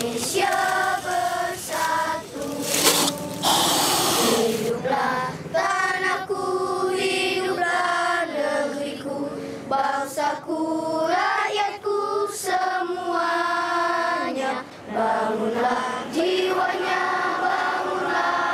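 A group of children singing together, holding long notes. A couple of loud rushes of noise cut in around three to four seconds in.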